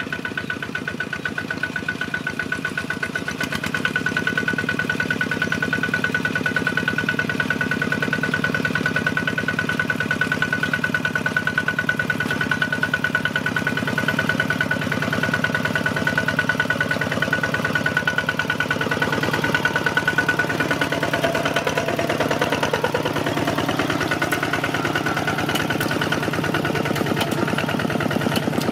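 Single-cylinder diesel engine of a Kubota two-wheel walking tractor running under load as it pulls a plough through the soil: a steady, rapid chugging that grows louder about four seconds in.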